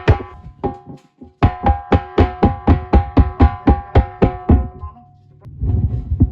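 Background music: a pitched percussion beat of sharp, evenly spaced strikes, about three or four a second, breaking off briefly near the end before fuller low sound comes back in.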